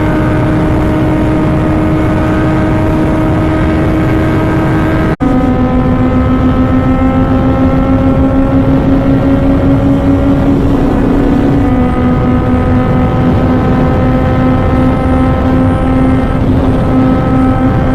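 A vehicle's engine running steadily as it moves, a droning hum that drifts slowly up in pitch. It cuts off abruptly about five seconds in and resumes lower, then steps down in pitch once more near twelve seconds, as with a gear change.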